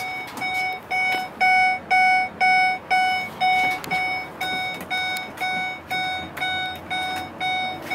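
Ford E-Series truck cab's dashboard warning chime beeping steadily, about two beeps a second, one single pitch, with the driver's door standing open.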